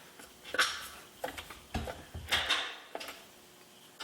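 Metal hand tools clinking and knocking, about six separate sharp clinks as sockets are handled and fitted to work on a bicycle crank bolt.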